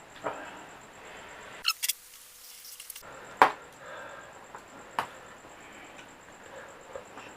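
Close-up eating sounds of a person eating Indomie mie goreng fried noodles: chewing and wet mouth clicks, with a short hiss near two seconds in and a sharp click about three and a half seconds in.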